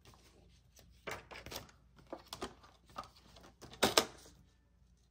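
Laminated sheets and a plastic slide paper trimmer being handled: a string of light clicks and rustles, with two sharp plastic clacks about four seconds in.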